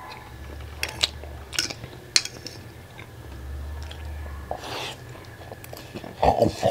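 Someone eating noodles from a ceramic bowl: a utensil clicks sharply against the bowl several times in the first couple of seconds, with chewing.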